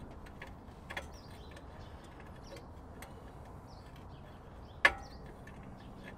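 Hand tool working at a car's rear drum brake while the brake line is being disconnected: scattered light clicks, a small knock about a second in and one sharp click just before the five-second mark, with birds chirping faintly in the background.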